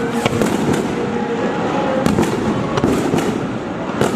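Fireworks going off: a dense, irregular run of sharp bangs and crackles over a continuous rumble, with louder bangs about two seconds in and near the end.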